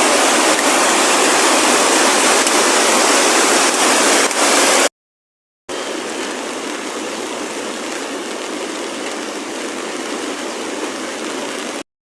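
Rushing floodwater, a steady, loud rush of water. It cuts off abruptly about five seconds in and, after a moment of silence, resumes somewhat quieter.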